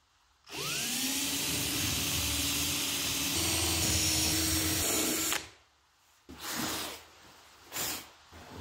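Cordless drill spinning up with a rising whine and boring a hole down through a white melamine-faced bench top for about five seconds. Then come two short puffs of air as the drilling dust is blown off the hole.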